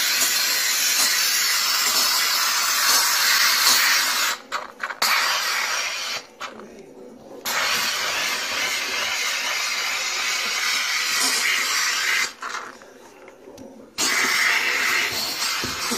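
McCulloch MC1385 canister steam cleaner jetting steam through a round brush attachment onto a stovetop: a loud, steady hiss. The hiss cuts out three times for a second or so and starts again, about four, six and twelve seconds in.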